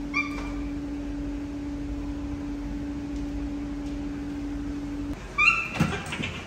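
Baby monkey giving short high-pitched calls, a brief one just after the start and a louder one near the end, followed by a few knocks as it climbs onto a wooden chair. A steady low hum runs underneath and stops about five seconds in.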